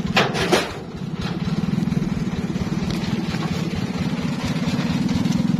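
Single-cylinder diesel engine of a công nông farm truck idling with a steady, fast putter. Two heavy thuds come close together about a quarter and half a second in.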